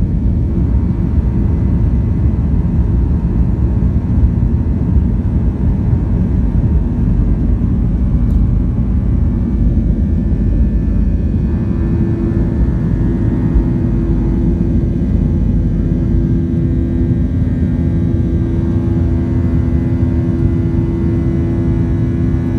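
Cabin sound of a Boeing 737-900ER's CFM56-7B jet engines at takeoff thrust, with the rumble of the wheels on the runway during the takeoff roll. About halfway through, a steady engine hum comes through, and the low rumble eases later as the airliner lifts off.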